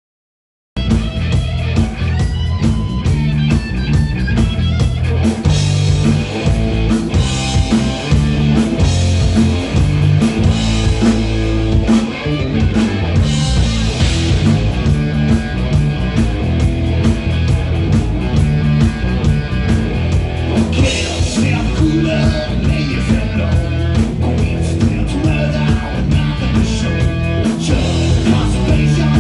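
Rock band playing: electric guitar, bass guitar and drum kit with a male lead singer. The music starts suddenly just under a second in.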